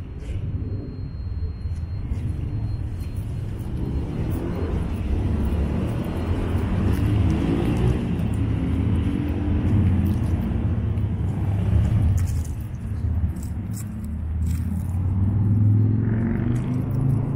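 Low rumble of motor-vehicle traffic on the street, with a car engine rising and falling in pitch twice as vehicles go by.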